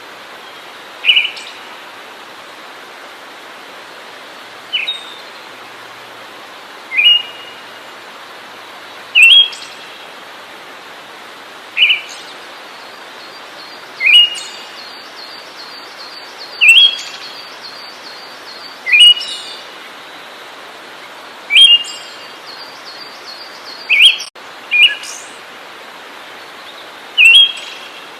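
A songbird repeating a short, sharp, upward-sweeping call about every two seconds over a steady hiss. A fainter rapid ticking call runs through the middle stretch.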